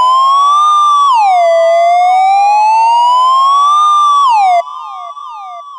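Synthesizer patch imitating a police siren's wail: one loud tone slowly rises, then drops quickly, about three seconds a cycle, peaking twice. It cuts off abruptly about four and a half seconds in, and echoes of the falling glide from the delay effect trail away after it.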